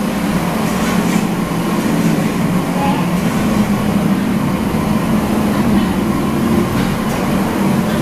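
Steady loud mechanical rumble with a low hum, unbroken throughout, typical of large kitchen machinery running.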